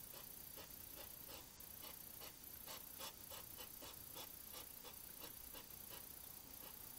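Faint, irregular crunching clicks, two to four a second: a European hedgehog chewing food at a feeding dish.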